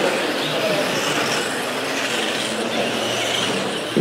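Electric radio-controlled mini race cars running on an indoor carpet track: a steady whir of motors and tyres, with whines that slide up and down as the cars accelerate, brake and pass.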